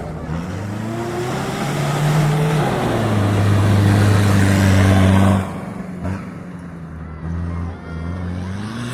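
Rally car engine revving hard as the car comes through, its pitch rising and dropping back with each gear change. It is loudest about five seconds in, then the level drops suddenly as the car goes past, with the engine still heard revving up again near the end.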